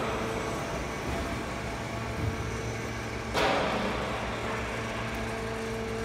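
Sound barrier panel roll forming machine running with a steady hum, and a brief burst of hiss about three and a half seconds in.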